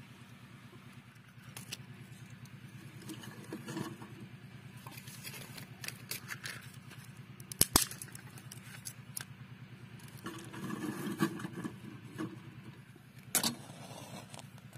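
Clinks and knocks of dishes and utensils being handled, with two sharp knocks close together about halfway and another near the end, over a steady low hum.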